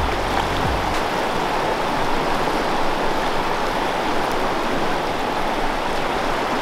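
Fast-flowing river running over rocks and through riffles: a steady, even rush of water.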